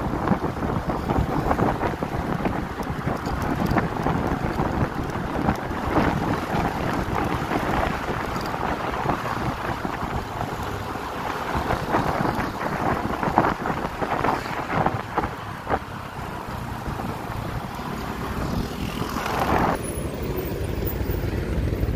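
Wind buffeting the microphone over the engine and tyre noise of a moving vehicle, in irregular gusts.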